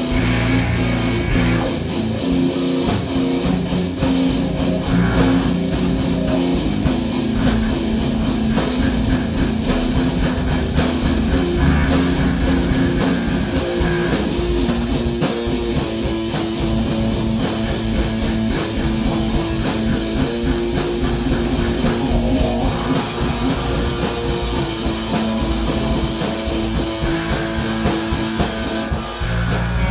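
Live rock band jamming with guitar and drum kit, improvising over a two-note E and F figure. Loud and continuous.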